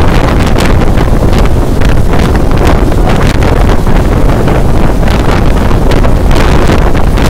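Loud, continuous wind buffeting on a phone microphone from a vehicle moving at highway speed, over the vehicle's low road rumble.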